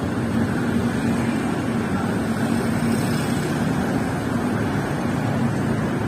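Steady din of city street traffic, engines running without a break.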